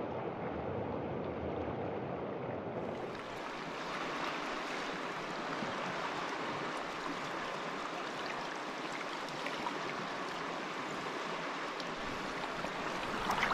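Steady rush of the Eucumbene River's flowing water close to the microphone, brighter and fuller from about three seconds in.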